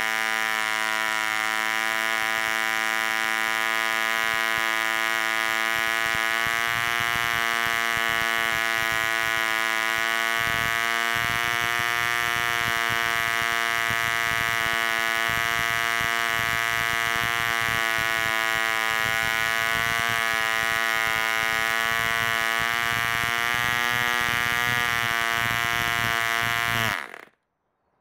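Super Hurricane 24 vintage two-stroke spark-ignition model engine running flat out on a 10x6 propeller at about 7,000 RPM: a loud, steady, high buzz with a slight waver in pitch. It stops suddenly near the end.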